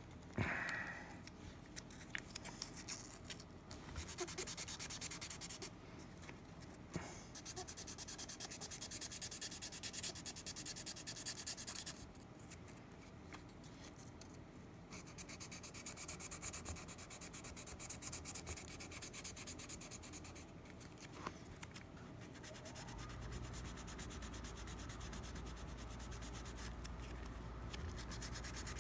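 400-grit sandpaper rubbed by hand over the repaired bite area of a saxophone mouthpiece, in bouts of quick back-and-forth strokes with short pauses between them: fine sanding that smooths the filled tooth gouge.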